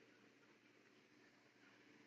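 Near silence: faint background hiss with a low steady hum.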